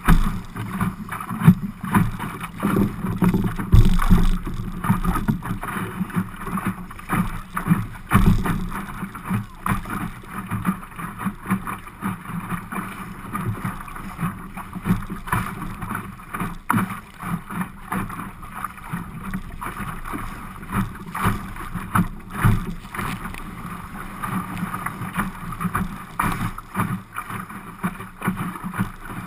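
Choppy water slapping and rushing against the hull of an Optimist sailing dinghy under way, in uneven splashes, with wind buffeting the microphone.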